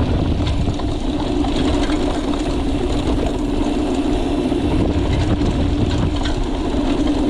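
Steady low rumble of a running vehicle, with a constant hum under it.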